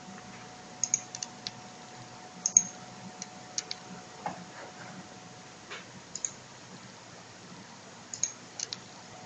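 Small sharp clicks at irregular intervals, often in quick pairs or clusters, the loudest about two and a half seconds in, over a faint steady high hum.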